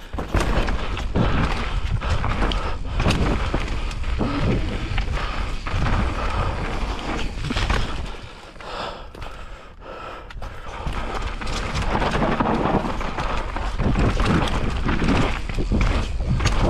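Mountain bike riding down a dry dirt trail: a continuous rush of tyres on loose dirt and wind rumbling on the microphone, with the bike knocking and rattling over bumps. It eases off for a few seconds around the middle.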